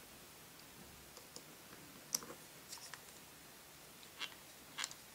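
Faint, sparse clicks and taps of hard plastic toy parts and metal tweezers being handled, a few light clicks about two seconds in and a couple more near the end.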